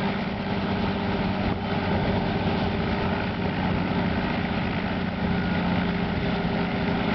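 Light helicopter running on the ground with its main rotor turning, a steady engine and rotor drone.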